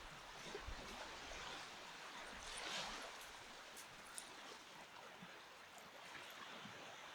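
Small waves washing gently on a sandy beach, one swelling a little louder about two and a half seconds in.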